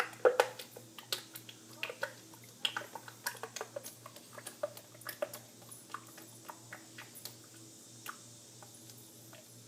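Motor oil glugging out of a quart bottle into a funnel, as a run of irregular gurgling pops that thin out toward the end.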